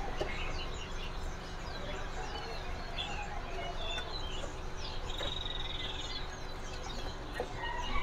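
Scattered short chirps and calls from many caged songbirds, with a brief rapid trill about five seconds in, over a steady low hum.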